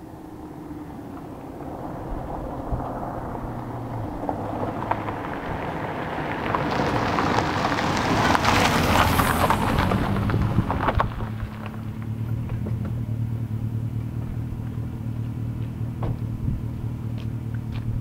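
Car exhaust through a Dynomax muffler under hard acceleration, growing louder as the car comes on and loudest about eight to ten seconds in. The driver backs off sharply about eleven seconds in, because the car won't hook up on loose gravel. After that comes a steady low exhaust note, with a few light ticks near the end.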